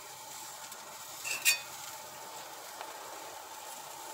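Raw meatloaf burger patties sizzling on a hot grill grate, a faint steady hiss, with one short sharp tap about a second and a half in.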